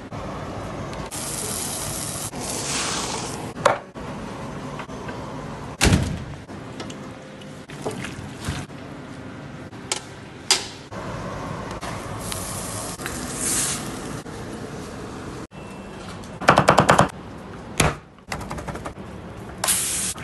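Kebab skewers sizzling on a grill, a hiss that swells and fades, with repeated sharp clicks and clanks of metal skewers being handled and a short rapid rattle near the end.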